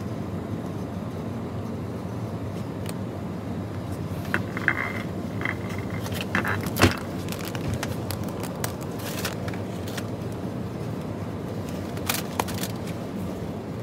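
Steady low hum of supermarket background noise, with scattered metallic clinks and clicks in the middle and again near the end, the loudest a sharp knock about seven seconds in.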